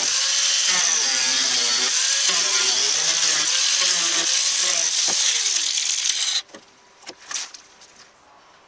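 Power tool cutting through the sheet metal of a car's quarter panel and wheel well. It runs with a harsh, high cutting noise, its motor pitch wavering under load, then cuts off abruptly about six seconds in, followed by a few brief knocks.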